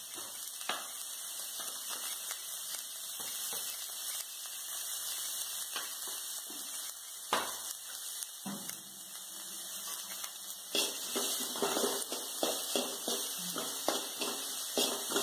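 Chopped onions and green chillies sizzling in hot oil in a metal kadai, with a steady hiss and the sharp clicks and scrapes of a steel spoon against the pan as they are stirred.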